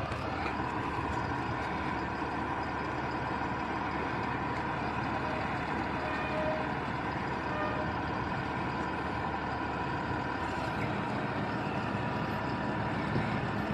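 A truck's engine running steadily, an even noise that holds at one level without clear changes.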